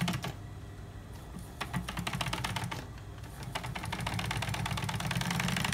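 Industrial sewing machine stitching along the edge of a leather handbag panel: rapid, even clicking of the needle and feed over the low hum of the motor, in runs with a short pause, the longest run near the end.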